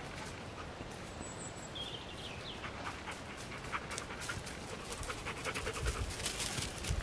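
Black Labrador retriever panting, the quick breaths starting a couple of seconds in and growing louder as the dog comes close.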